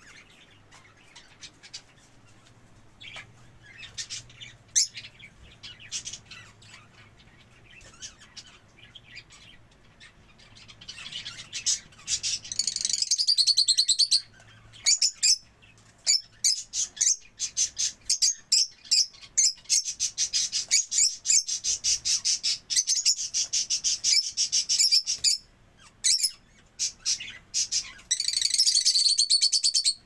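Budgerigars chirping: scattered single chirps at first, then, about a third of the way in, loud, rapid, nearly continuous high chirping with a few brief breaks. It cuts off suddenly at the end.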